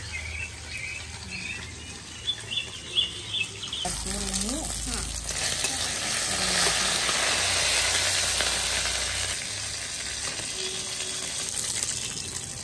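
Pieces of silver carp frying in hot oil in an iron wok, sizzling as a spatula turns them. The sizzle starts about four seconds in, is loudest in the middle and eases off near the end.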